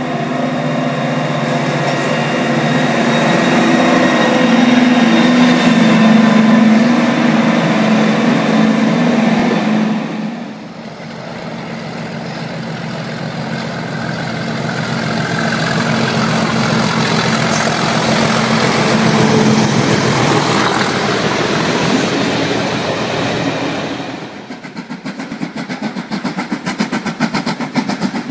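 A diesel locomotive working under power as it approaches, with a steady loud drone. After a cut there is a second train approaching with a building rush. Near the end a steam locomotive works hard, with fast, regular exhaust beats.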